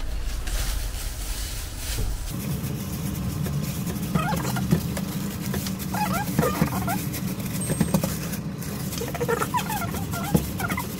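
Thin plastic food-prep glove crinkling as a hand squashes and presses a ball of cookie dough flat on a silicone mat. Short squeaky calls, like an animal whimpering or chirping, break in several times from about four seconds in, over a steady low hum that starts about two seconds in.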